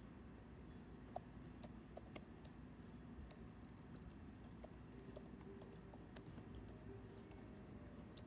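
Faint, irregular light clicks of typing on a keyboard, over quiet room tone.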